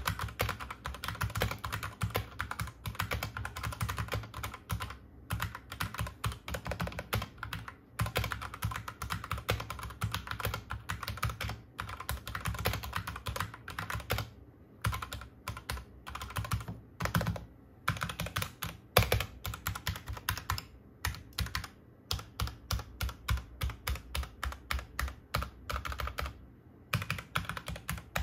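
Typing on a Redragon K631 Castor mechanical keyboard fitted with Huano red linear switches: fast, irregular keystroke clicks in runs with brief pauses, as a sound test of the switches.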